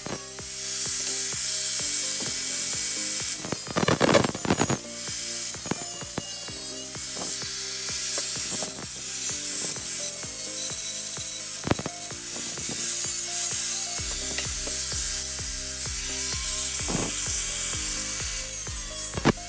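Background music with repeated clicking and rasping tool noise over it.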